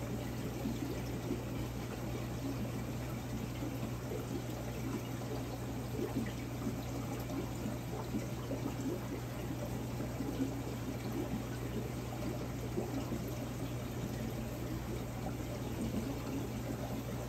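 Large aquarium's circulating water burbling and trickling steadily, over a constant low hum from its equipment.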